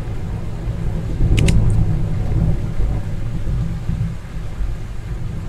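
Steady low rumbling noise, with two brief sharp clicks about one and a half seconds in.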